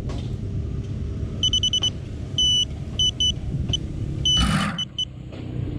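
Steady low outdoor rumble, with a string of short, high-pitched chirps starting about one and a half seconds in and a brief hiss about four and a half seconds in.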